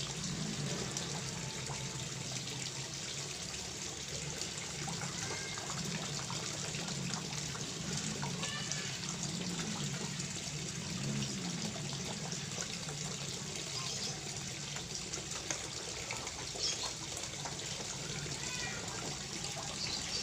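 Koi pond water trickling and splashing steadily, with many small ticks and splashes on top and a few faint bird-like chirps.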